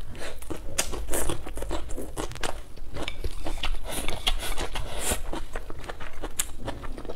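Close-miked biting and chewing of a green chili pepper, with many crisp crunches.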